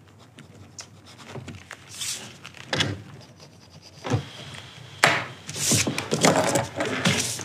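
Paper and objects being handled on a wooden table: rustling and rubbing with a few soft knocks, busier and louder in the last couple of seconds.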